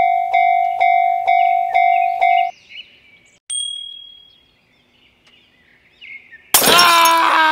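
Electronic alarm-like ding repeating about twice a second, stopping about two and a half seconds in. A single high ding follows about a second later. Near the end comes a loud, long sound with several pitched tones that fall slightly.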